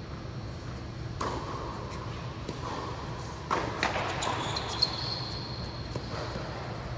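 Tennis ball being struck and bouncing on an indoor hard court: a few sharp pocks that ring in the big hall, about a second in, twice in quick succession around three and a half seconds, and once near five seconds, with a brief high squeak in between. A steady low hum runs underneath.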